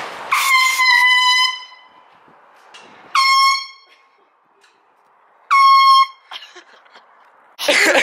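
Handheld aerosol air horn blown three times: one blast of about a second, then two shorter half-second blasts. Each starts with a quick drop in pitch before holding a steady blaring tone.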